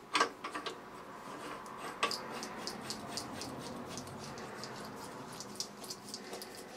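ER32 collet nut being screwed by hand onto the threaded collet holder: a sharp metal click just after the start and another about two seconds in, then a run of light, quick metallic ticks as the nut is spun along the thread.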